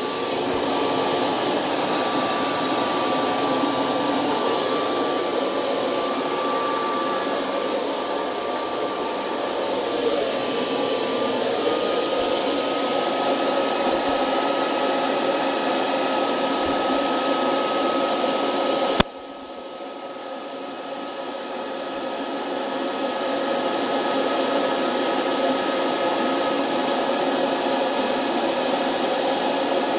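DIY fluid bed coffee roaster's blower running steadily, forcing hot air through the churning beans, with a thin steady whine over the rushing air. About two-thirds of the way through there is one sharp click, after which the noise drops suddenly and builds back up over a few seconds.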